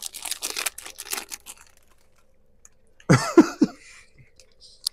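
Plastic snack bag crinkling as it is handled and opened, then a quick run of about three coughs a little after three seconds in.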